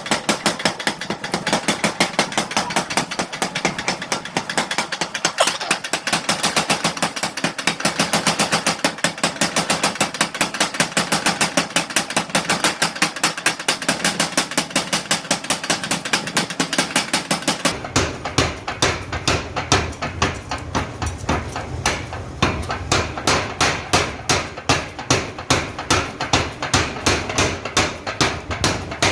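A mechanical power hammer pounding hot steel in a fast, even rhythm of blows, about five a second. About two-thirds of the way through the blows slow to about three a second and turn heavier.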